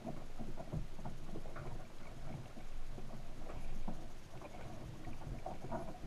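Underwater ambient sound picked up by a camera on a submerged crab trap: a low rumble of moving water with irregular soft knocks and clicks.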